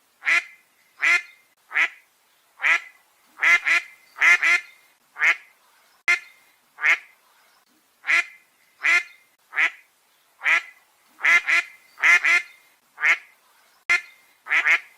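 A duck quacking over and over, short loud quacks coming about once a second, some in quick pairs of two.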